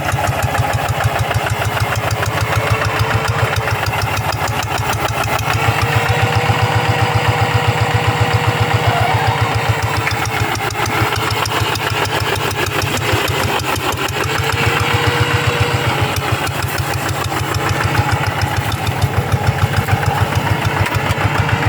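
Rice-paddy hand tractor's engine running steadily, with a fast, even chugging. A faint whine wavers up and down over it.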